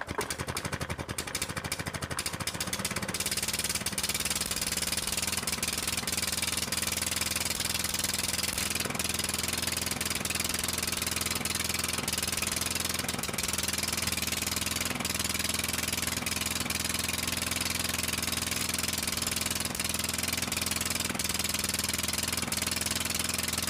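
Small single-cylinder four-stroke lawn mower engine running just after being pull-started, a little uneven for the first few seconds, then settling into a steady run.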